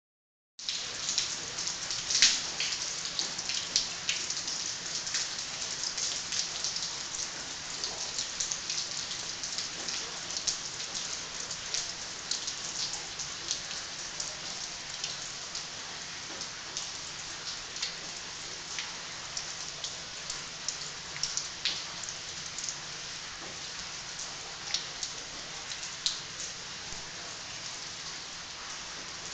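Rain falling: a steady hiss dotted with many sharp, close drops and drips striking hard surfaces, a few noticeably louder than the rest.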